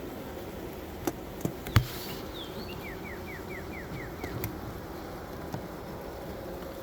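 A swarm of honeybees humming steadily around an open hive, with several sharp knocks and clicks from handling the hive frames; the loudest knock comes about two seconds in. Midway, a bird sings a quick run of about seven falling notes.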